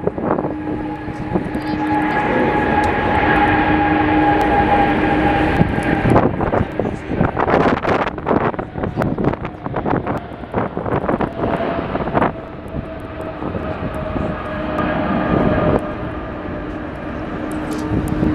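Jet airliner's engines running with a loud roar and a steady whine, the whine slightly lower in pitch in the second half. In the middle, strong wind buffets the microphone with crackling gusts.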